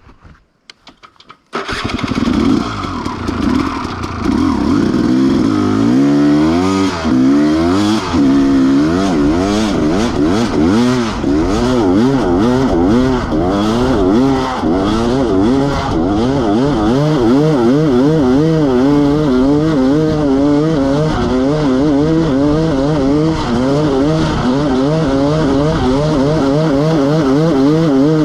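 KTM 300 EXC's single-cylinder two-stroke engine, loud from about a second and a half in, its pitch rising and falling quickly as the throttle is opened and closed under riding, then holding a steadier wavering pitch near the end.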